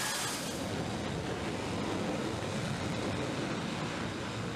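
Steady rushing roar of jet engines running on an aircraft carrier's flight deck.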